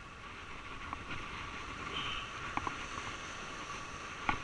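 Surf washing and churning against the rocks, with a few short sharp clicks from handling the spinning rod and reel, the loudest near the end.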